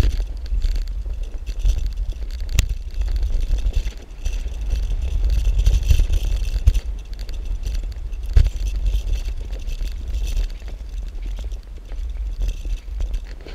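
Bicycle riding over a gravel and dirt path: wind rumble on the camera microphone with tyres crunching over the loose surface and the bike rattling, with two sharp knocks from bumps.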